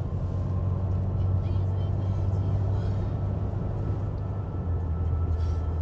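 Car cabin noise while driving at road speed: a steady low drone of engine and tyres on the road.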